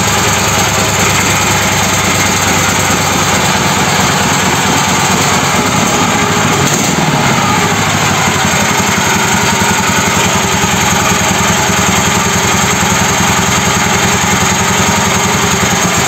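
Homemade mini tractor's engine running steadily, driving the hydraulic pump while the hitch system fills with oil for the first time. The engine note dips briefly about seven seconds in.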